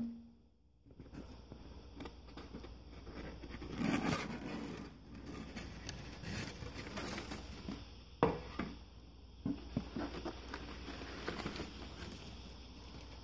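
Hands rustling and crinkling crumpled newspaper packing inside a styrofoam-lined cardboard shipping box, with scattered sharp clicks and scrapes from the box flaps and packing. It starts after about a second of near silence.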